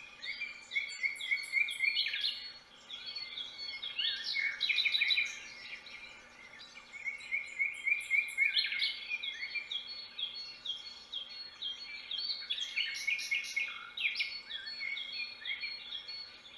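Several wild birds singing and chirping, with fast runs of short repeated notes, over a faint steady hum.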